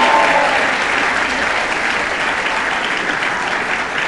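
Audience applauding, loud and steady, with a few voices cheering at the very start.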